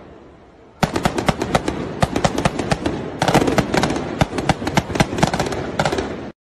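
Rapid, irregular gunfire from a staged street shootout being filmed, many shots in quick succession. The shots start about a second in and cut off suddenly near the end.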